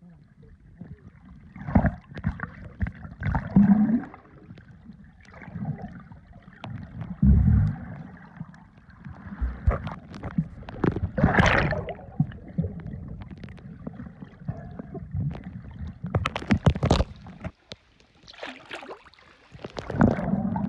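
Muffled water sloshing and gurgling heard through a camera held underwater as snorkelers swim and kick near the surface, in uneven surges with a few sharper splashes and knocks, the loudest about halfway through and again about three-quarters of the way in.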